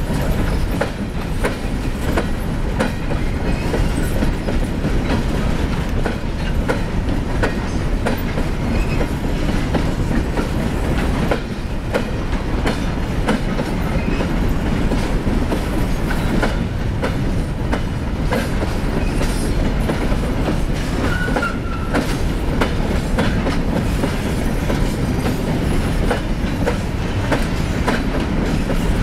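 Freight train of coal gondolas and hopper cars rolling steadily past: a constant low rumble with the wheels clicking irregularly over rail joints.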